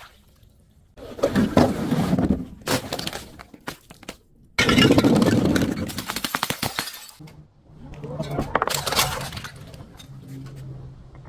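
Glass bottles breaking: several crashes, each followed by crunching and clinking of shards. The loudest starts suddenly about halfway through.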